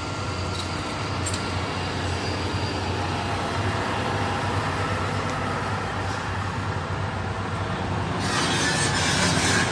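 A heavy vehicle runs with a steady low hum that slowly grows louder, then a loud hiss of air comes in near the end.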